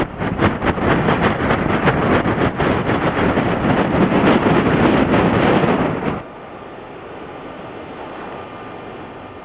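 Loud wind and machinery noise on the open deck of an offshore oil platform, with a run of rapid clicks. About six seconds in it drops sharply to a quieter steady hum indoors.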